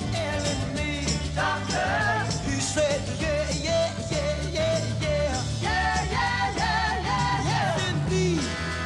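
A song with a singing voice over a steady drum beat.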